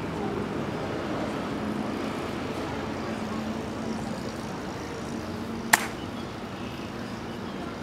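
Steady background hum of traffic and an outdoor crowd, broken once near the end by a single sharp click as an honor guard snaps his ceremonial rifle up during drill.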